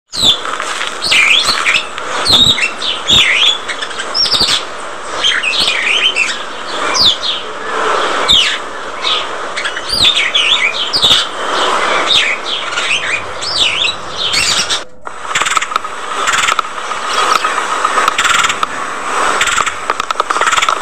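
Budgerigars chattering: many quick rising and falling chirps and warbles at once. About three-quarters of the way through the sound breaks off for a moment and turns into a steadier, raspier chatter.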